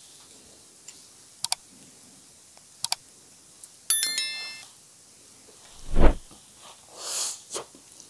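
Two pairs of sharp mouse-style clicks, then a short bright chime about four seconds in: the click-and-bell sound effect of an on-screen subscribe-button animation. A loud low thump comes around six seconds, followed by short slurping bursts as spicy noodles are sucked up.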